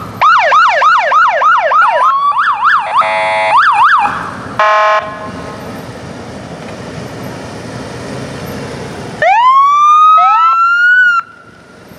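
Police motorcycle electronic sirens: a fast yelp of about four sweeps a second, breaking into a quicker warble, then a short steady horn blast. About nine seconds in, a wail winds up from low to high and cuts off suddenly near the end.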